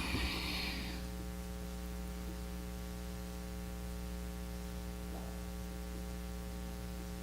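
Steady electrical mains hum, a buzz of many even tones, with the echo of a man's voice dying away in the first second.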